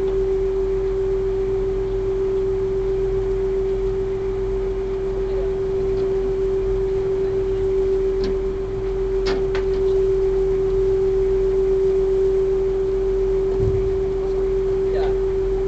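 Small river ferry's engine running with a steady humming tone over a low rumble.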